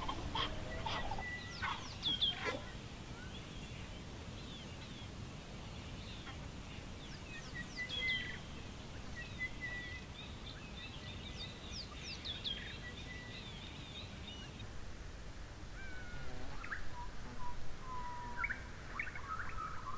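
Scattered high, bird-like chirps and short whistled calls over a faint outdoor background, with a few longer, steadier whistles; the calls drop lower in pitch near the end.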